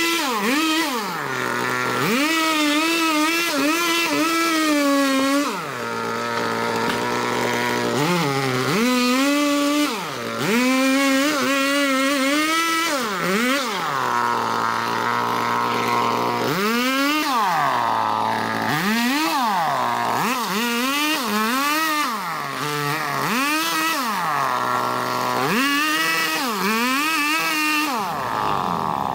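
Small petrol engine of a handheld yard power tool revving up and down again and again, climbing to a high held pitch under throttle and dropping back to a low idle between bursts.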